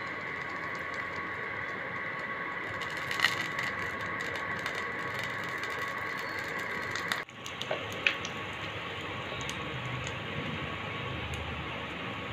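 Cooking oil heating in a steel pan on the stove: a steady hiss with faint crackling and a few sharp clicks. The sound drops out briefly about seven seconds in.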